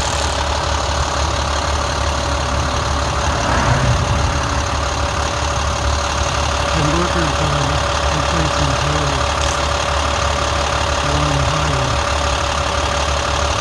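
Heavy utility truck engine idling close by: a steady low hum with a constant whine above it, with faint distant voices now and then.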